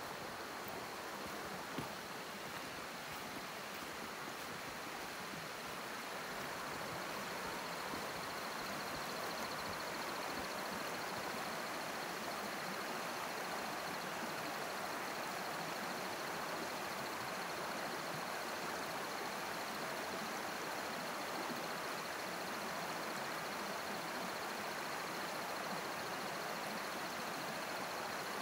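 Creek water running steadily after heavy rain, an even rushing noise that grows a little louder about six seconds in.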